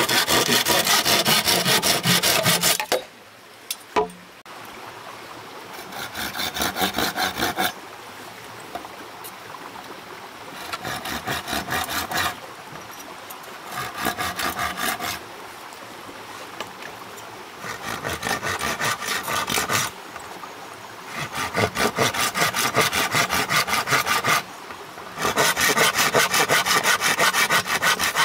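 Hand saw cutting wood in fast back-and-forth strokes, in bouts of a few seconds with short pauses between. A single sharp knock falls in one pause.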